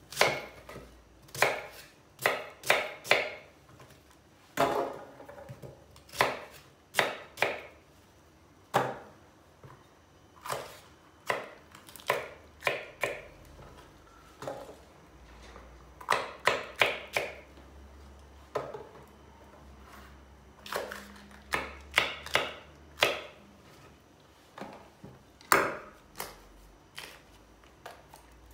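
Kitchen knife cutting an onion and green peppers on a wooden cutting board: irregular sharp knocks of the blade against the board, often in quick runs of two to four, thinning out near the end.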